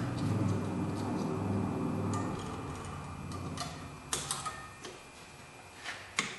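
Metal clicks and clinks of drum brake shoe hardware being fitted and locked onto the backing plate, with a cluster of sharp clicks about four seconds in and one sharp click near the end, over a low hum in the first couple of seconds.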